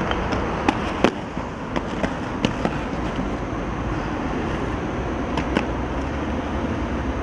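Skateboard rolling on stone paving with a string of sharp clacks from the board striking the ground. The loudest clack comes about a second in, and two more follow close together about five and a half seconds in.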